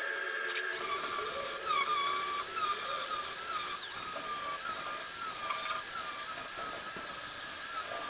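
A high-speed grinder working the truck's sheet metal, starting about a second in: a high whine whose pitch dips and recovers as it bites, over a steady hiss.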